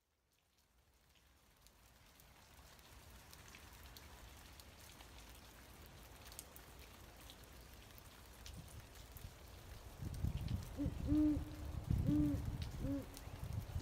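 An owl hooting: three or four short, low hoots near the end, over a faint low rumble with scattered light ticks. The ambience fades in from silence at the start.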